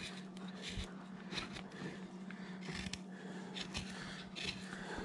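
Hand-pushed wood-carving gouge paring and scooping chips from a wooden figure. It makes a series of short, dry scraping cuts at irregular intervals, over a steady low hum.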